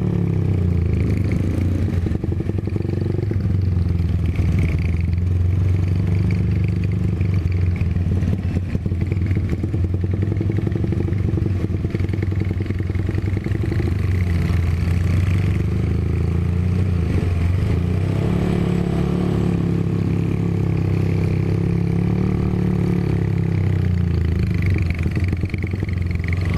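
Honda GL Pro motorcycle's single-cylinder four-stroke engine running as it is ridden at a steady pace; the engine note drops a little past halfway and picks up again.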